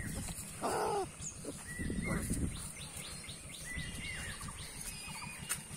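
Puppy giving two short, whining yelps, the louder one about half a second in and another about two seconds in, as a larger dog mouths it in a play fight. Small birds chirp repeatedly through the rest.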